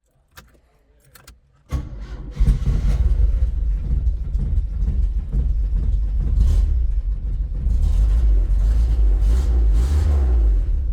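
Chevrolet Opala engine being started cold: a few faint clicks, then it cranks briefly and catches about two seconds in, and keeps running with uneven revving.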